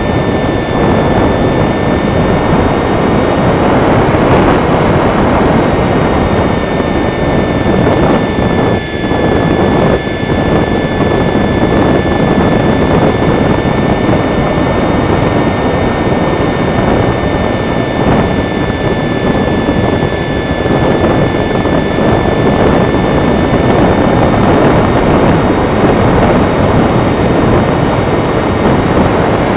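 Electric motor of a foam HobbyKing Fox RC glider whining steadily with a high, even pitch, heard from a camera on the model, with heavy wind noise on the microphone. The whine and level dip briefly about nine seconds in.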